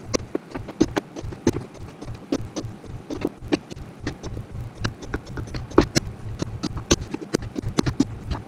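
A hammer tapping a small metal punch into the centres of MDF squares, a quick irregular run of sharp taps, marking the centres for drilling. A low steady hum runs underneath.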